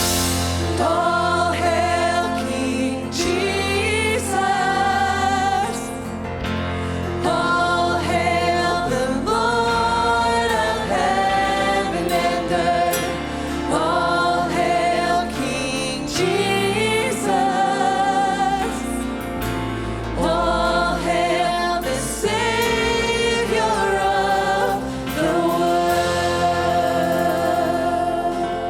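Live worship band and singers performing a slow contemporary worship song: long held sung phrases in several voices over a steady bass.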